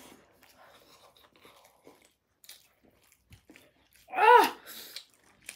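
Quiet eating sounds of chewing and small mouth clicks, then about four seconds in a short, loud, high-pitched vocal sound from one of the eaters, followed by a brief breathy hiss.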